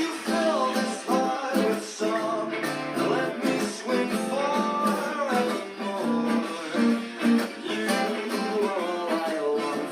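Guitar playing a melody over plucked chords, with some notes sliding in pitch.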